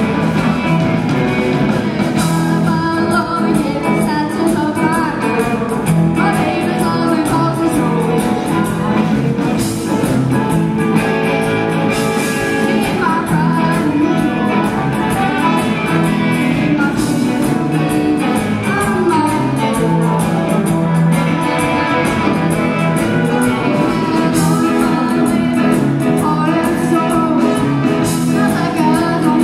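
Live rock band jamming: several electric guitars over drums, bass and keyboards, playing steadily.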